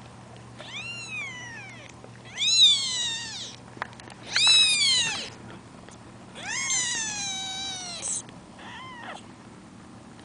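Week-old kittens mewing: four drawn-out, high-pitched cries, each rising then falling in pitch, followed by a short faint one near the end.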